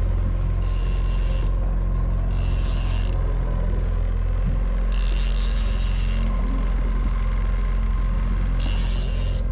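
Conventional fishing reel being cranked in four short spurts of about a second each while reeling in a hooked fish against the bent rod. Under it runs a boat engine's steady low drone.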